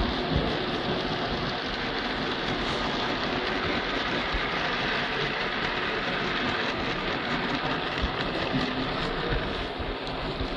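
Model freight train running past on its layout track: a steady rolling rumble of wagon wheels on the rails, easing off near the end as the last wagons go by.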